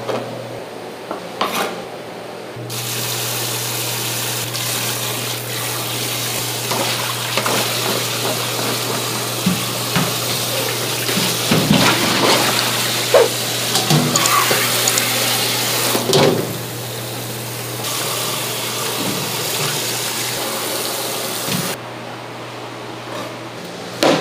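Tap water running hard into a sink while broccoli florets are rinsed in a plastic basket, with scattered knocks and rustles of the florets. The water starts a few seconds in and stops near the end. Before and after it a kitchen knife taps on a wooden cutting board.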